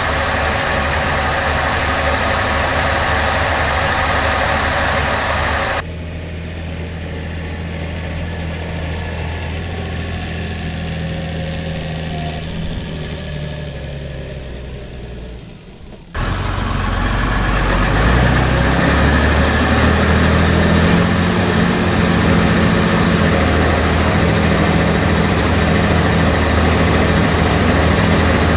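Massey Ferguson 3125 tractor's diesel engine working steadily under load while pulling a four-furrow plough. The sound jumps abruptly in level about six and sixteen seconds in; it is quieter and fading in between, then louder and deeper near the end.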